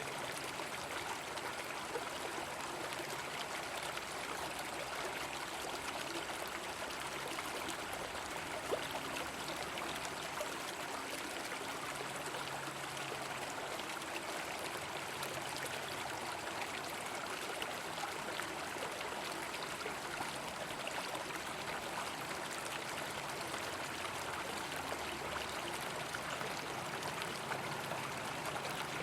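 A river flowing steadily, an even rush of running water, with one sharp click about nine seconds in.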